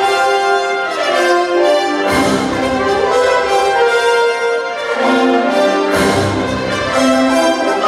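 Orchestral soundtrack of a nighttime water-and-light show, with sustained brass chords to the fore and the deep bass dropping out and coming back a few times.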